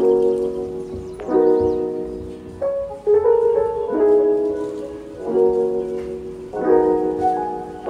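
Background music: mellow piano-like keyboard chords, a new chord struck about every second and a half and left to ring.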